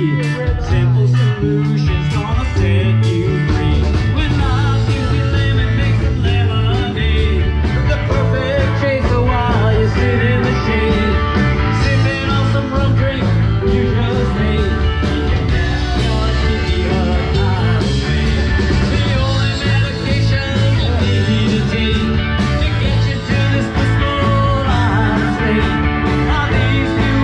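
Live band playing an amplified song, with a steady bass line, drums and guitar.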